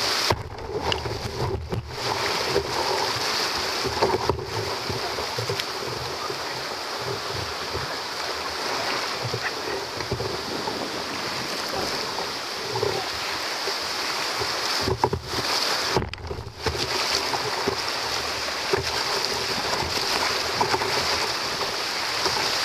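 Rushing whitewater of a rain-swollen river's rapids, heard up close from a kayak's bow with water splashing around it. The steady rush briefly cuts out a few times, longest about two-thirds of the way through.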